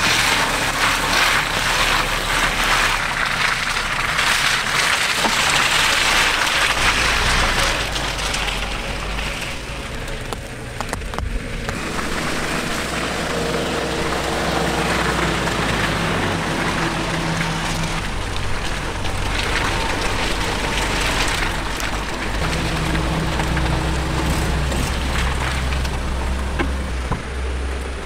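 Suzuki Jimny driving in rain: a steady engine and road hum that shifts in pitch a couple of times, under a hiss of rain that is heaviest in the first several seconds.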